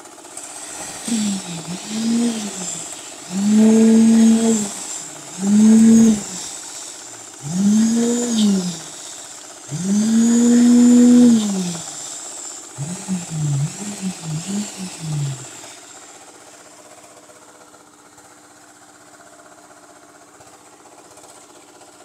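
Handheld electric concrete vibrator motor revved in bursts. About six whines rise and fall in pitch over the first twelve seconds, then come a few quicker short blips, and then only a low steady hum remains.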